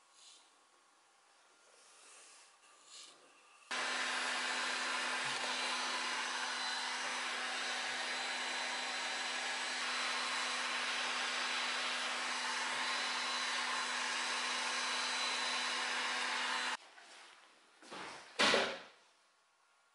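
A Makita heat gun running steadily, a fan hiss with a constant hum, aimed at the veneered edge of the top to loosen the old veneer; it switches on a few seconds in and cuts off suddenly near the end. A short loud thump follows just after it stops.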